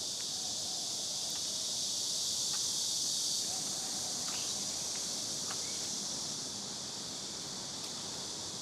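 A steady, high-pitched insect chorus droning without a break, with a few faint ticks and chirps over it.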